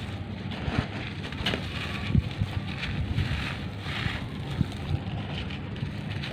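Handfuls of crumbly charcoal powder poured from the hands onto a heap: a gritty, crunchy hiss that swells and fades with each pour, with a few soft thuds as clumps land. A low rumble of wind on the microphone runs underneath.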